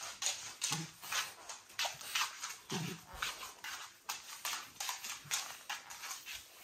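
French bulldog sniffing and snuffling in quick short bursts, about three a second, with a short low grunt about three seconds in.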